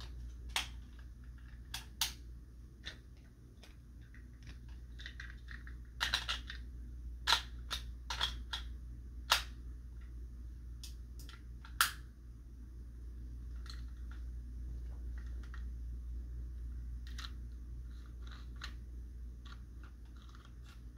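Scattered sharp plastic clicks and taps of Beyblade parts being handled and fitted together, bunched most densely about six to nine seconds in, over a low steady hum.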